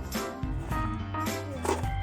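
Background music with a steady beat, a bass line and plucked-string notes.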